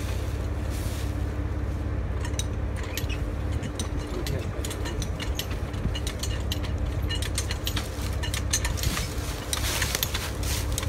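Irregular crackling and clicking of dry leaves and twigs as a raccoon with its head stuck in a hole under a log struggles on the leaf litter. A steady low rumble runs underneath.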